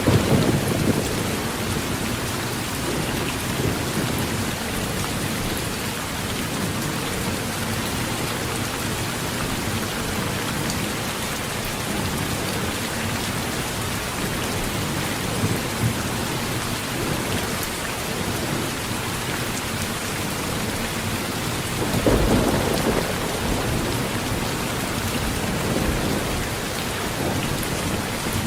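Heavy rain falling steadily on a metal tin roof, with a low rumble of thunder at the start and another about three-quarters of the way through.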